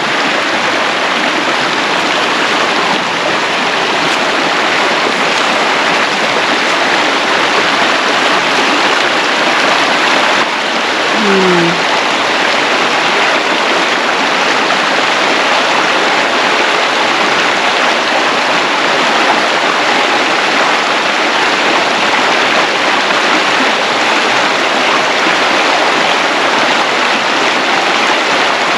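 Creek rapids and small cascades rushing close by: a loud, steady, even wash of water.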